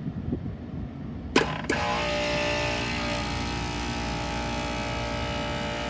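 A contactor clacks in about a second and a half in, and the rooftop unit's refrigeration compressor starts and runs with a steady, even hum while the contactor is held closed by hand.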